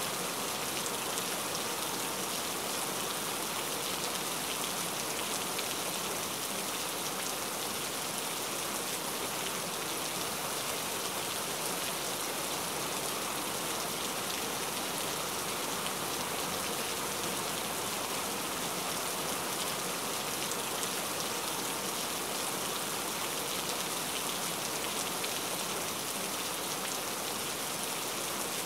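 Steady rain falling, even and unbroken: a rain ambience recording.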